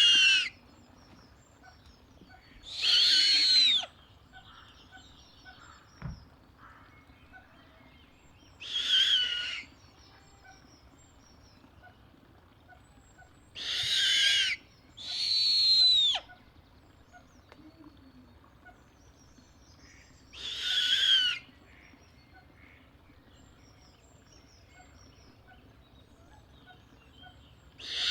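Snowy owl calling: harsh, high-pitched calls about a second long, each arching up and falling in pitch, repeated every few seconds, with two close together near the middle.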